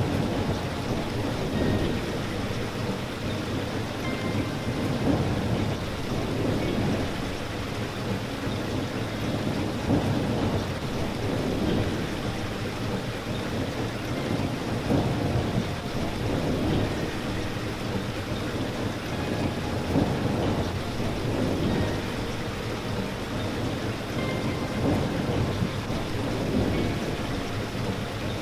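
Steady rain falling on a surface: a dense, even hiss with most of its weight in the low range, swelling and easing a little throughout.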